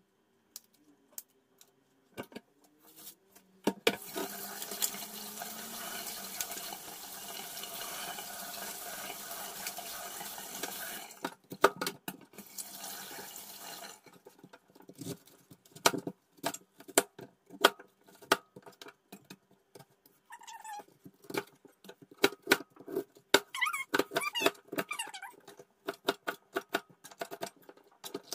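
A few light handling clicks, then a kitchen tap running into a stainless-steel sink for about ten seconds, stopping suddenly; after that a large knife chops a head of cabbage on a cutting board in quick, irregular knocks.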